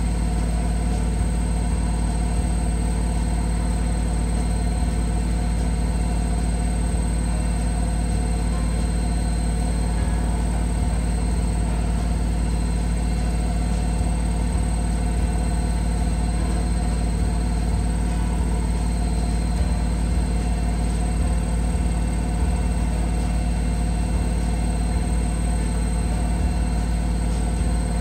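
Steady low mechanical hum, like a motor or fan running.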